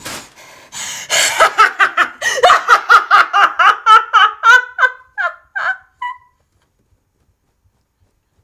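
A woman's loud, hysterical laughter: a fast string of high 'ha' pulses, about five a second, sliding down in pitch and breaking off about six seconds in.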